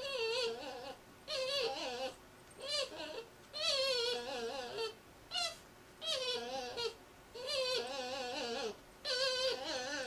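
A cocker spaniel making a wavering, violin-like whining sound while scratching himself, the pitch wobbling quickly up and down. It comes in about eight short bouts with brief pauses between them.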